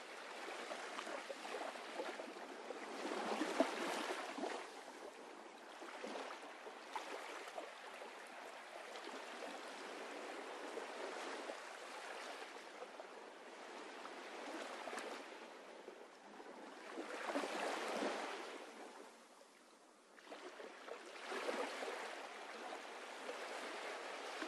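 Faint rushing water sound, swelling and easing in slow surges, with a brief drop to silence about three-quarters of the way through.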